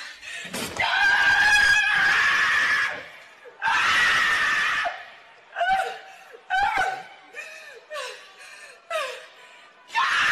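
A woman screaming: two long, high screams, then a string of shorter wailing cries that rise and fall in pitch, and one more loud scream near the end.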